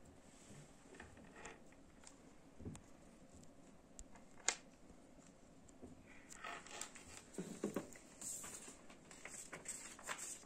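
Faint handling of craft materials by hand: small clicks and taps, a sharp click about four and a half seconds in, then paper rustling through the second half.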